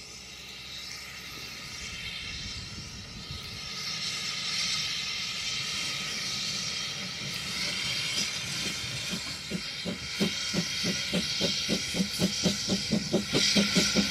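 Narrow-gauge steam locomotive working: a rising hiss of steam, then exhaust beats come in about eight seconds in, growing louder at about three a second.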